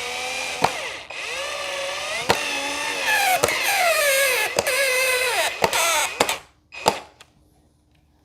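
Power drill driving screws into the shelf's particleboard panels: the motor runs in long pulls, its pitch sagging and picking up again as the screws bite, with sharp clicks along the way. It stops briefly about a second in, and ends with two short bursts near the end.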